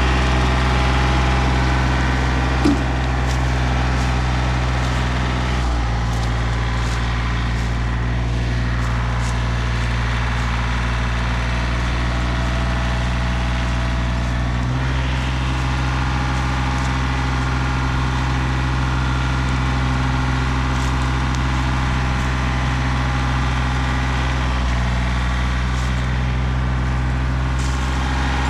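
An engine running steadily, its pitch shifting slightly a few times, with one brief sharp knock about three seconds in.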